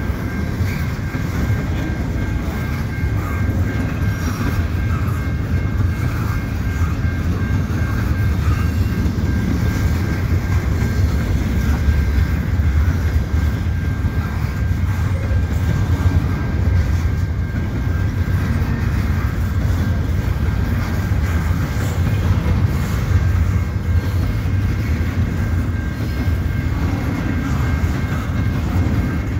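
Double-stack intermodal well cars of a slow freight train rolling past, wheels clattering over rail joints and crossing trackwork over a steady low rumble. A level-crossing bell rings steadily with it.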